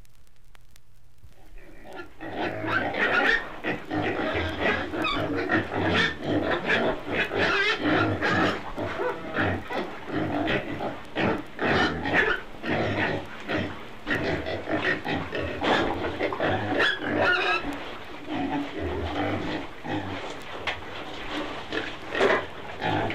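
Pigs and piglets grunting and squealing, starting about two seconds in after a short quiet gap between tracks, with a few higher gliding squeals among the dense calls.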